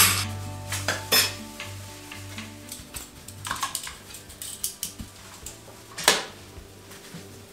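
Handheld plastic scrub brush knocking and scraping against a ceramic washbasin and stone counter in a few short, irregular clatters, over steady background music.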